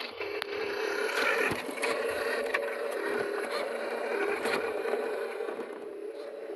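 Small electric motors of a radio-controlled excavator whirring steadily, with a rough scraping layer over the hum, as of the bucket working through sand.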